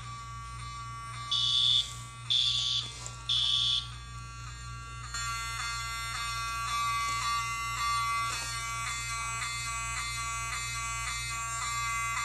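Fire alarm horn sounding the evacuation signal: three loud buzzing blasts about a second apart. From about five seconds in, a quieter buzzing alarm tone pulses steadily about twice a second.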